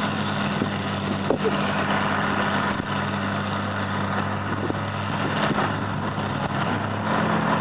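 Diesel engines of tracked hydraulic excavators running steadily as they work a pile of concrete rubble. A sharp knock comes about a second in, with a few lighter knocks after.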